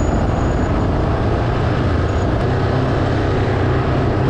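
ATV engine running steadily under way, with a heavy low rumble and noise from the ride.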